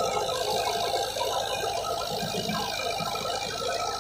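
Massey Ferguson 265 tractor's diesel engine running steadily under load while driving a wheat thresher, whose drum gives a continuous dense rattle and whir as wheat sheaves are fed in.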